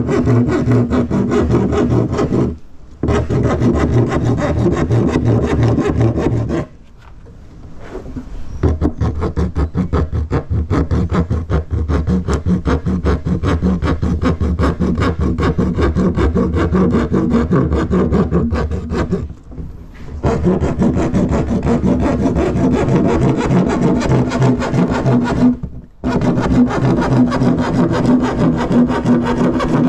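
Hand saw cutting through the top of a blue plastic drum with quick back-and-forth strokes. The sawing stops briefly four times, the longest break a few seconds before the 10-second mark.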